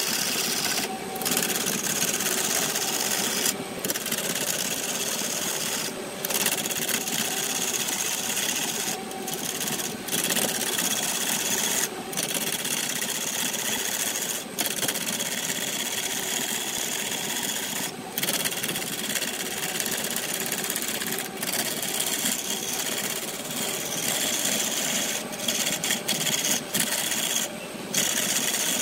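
Turning tool cutting into a spinning segmented wooden blank on a wood lathe: a steady scraping hiss of the cut, with brief breaks every few seconds.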